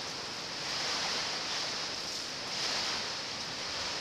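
Hurricane wind driving heavy rain: a steady rushing hiss that swells about a second in and again near three seconds.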